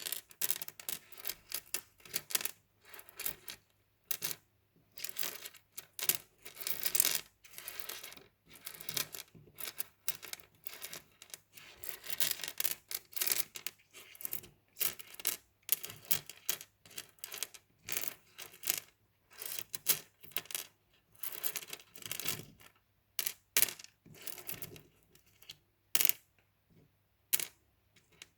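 Small mosaic tiles clicking and clattering against one another as they are handled, in irregular runs of sharp clinks and short rattles.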